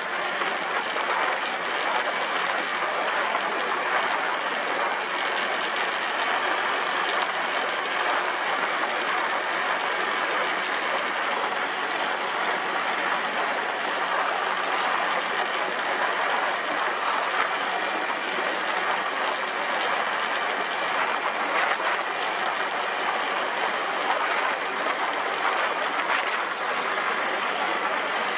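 ATV riding at a steady speed: an even, unbroken rush of engine and wind noise with no change in pace.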